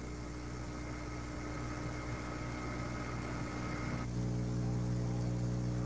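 Steady low electrical hum with a hiss over it, the background noise of an old home-made tape recording. About four seconds in, a faint high whine stops and the hum gets a little louder.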